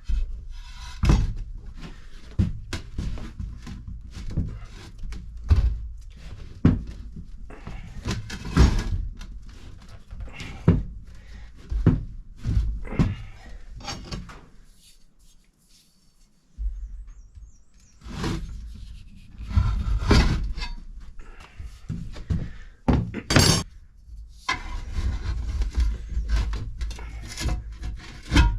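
Hand tools working a tractor tire and rim: irregular clunks and knocks, with scraping between them and one brief high squeal about two-thirds of the way through.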